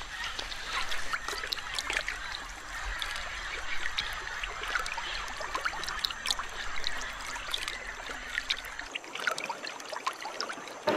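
Shallow river water trickling and lapping with many small splashes, stirred up by a green anaconda moving through it.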